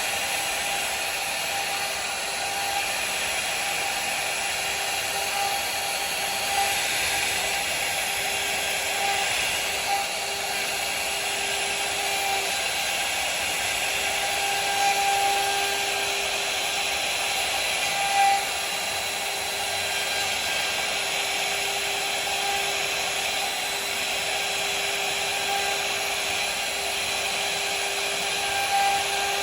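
CNC router spindle running steadily while cutting wood: a constant whine over a hiss, with a few brief louder moments.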